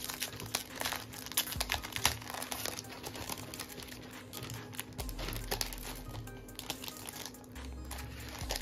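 Clear plastic cellophane sleeve crinkling as it is handled and worked off a pad of designer paper, in a run of irregular crackles that thin out in the second half.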